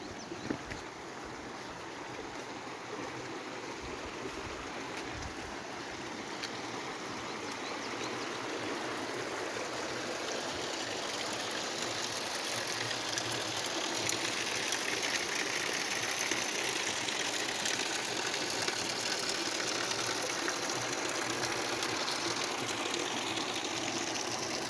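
Water rushing steadily down a ravine stream and waterfall, growing gradually louder and brighter over the second half. A couple of brief knocks about half a second in.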